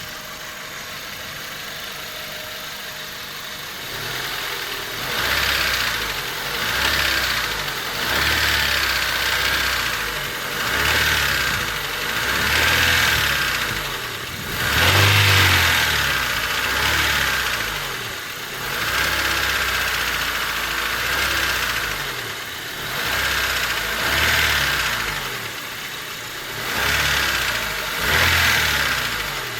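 Honda Civic D16Y8 1.6-litre four-cylinder engine running with a ticking noise, its level swelling and easing every couple of seconds after the first few seconds. The tick comes mainly when the engine is hot, and a valve adjustment has not cured it; compression is even across all four cylinders.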